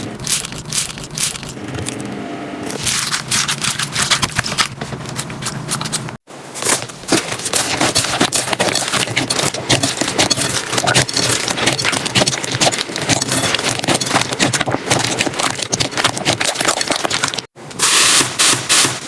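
Slime being squeezed, pressed and stretched, giving dense crackling, popping clicks and sticky scraping, in three clips cut together with short breaks about six seconds in and near the end.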